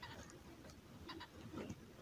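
Faint, short animal calls, a few of them, about a second in and again near the end.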